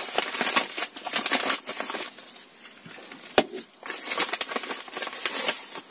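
Plastic packaging crinkling and rustling as it is handled and pulled open by hand, with one sharp click about three and a half seconds in.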